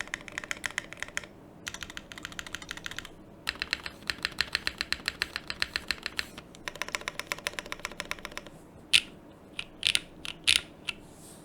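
Typing on a plateless, undampened Vertex Arc 60 mechanical keyboard with stock Kailh BCP switches and GMK Norse keycaps: four quick runs of keystrokes, then a handful of single, louder key strikes near the end.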